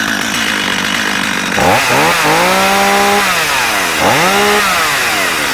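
Stihl 025 (MS 250) two-stroke chainsaw with its chain brake off, idling and then revved up twice: the first rev held for about a second and a half, the second a short blip, dropping back to idle after each.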